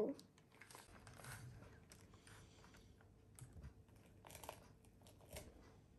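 Faint handling sounds: soft crunches and crinkles, a few at a time, as the cut top of a small pumpkin is worked loose by hand.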